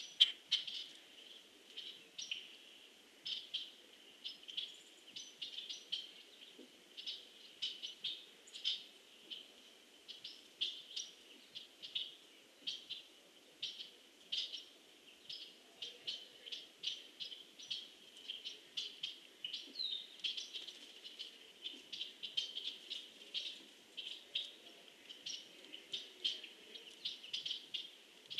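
Small woodland birds giving short, sharp chip notes in an irregular stream, several a second. There is one brief down-slurred call about twenty seconds in.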